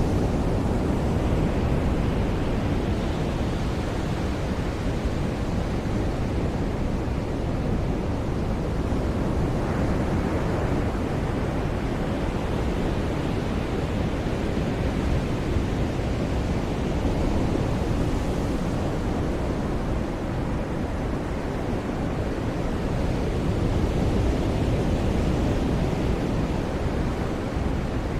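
Ocean surf on a beach: a continuous wash of breaking waves, swelling and easing every few seconds, with a deep rumble underneath.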